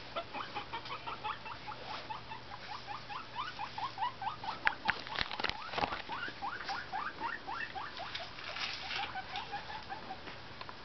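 A small animal squeaking: a long run of short rising chirps, about four a second, with a few sharp clicks near the middle.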